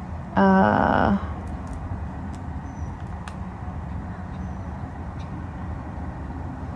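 A woman's brief closed-mouth "mmm" hum at one steady pitch while she thinks, then a steady low background hum with a few faint ticks.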